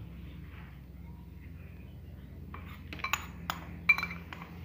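Metal spoon clinking against a plastic cup while beating raw eggs with a little salt: about six sharp clinks in the second half.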